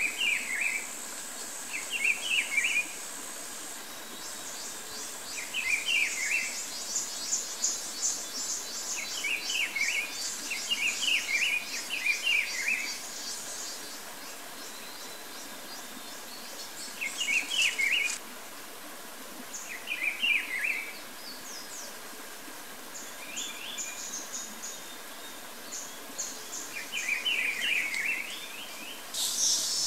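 Outdoor wildlife ambience: a bird gives short bursts of quick notes, about ten times, every couple of seconds, over a high, steady insect trill that turns into a pulsing chirp after a few seconds.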